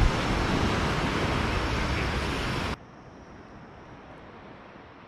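Wind rushing over the microphone, with surf washing on a sandy beach. It cuts off abruptly a little less than three seconds in, leaving only a faint steady hiss.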